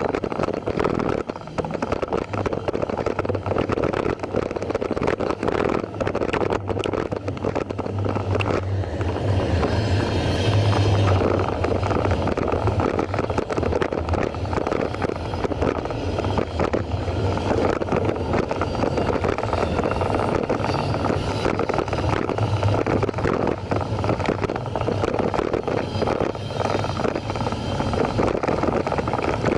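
Wind on the microphone and the constant rattle of a loosely held camera on a moving e-bike, over the low rumble of a passing BNSF intermodal freight train. The rumble is strongest about a third of the way in.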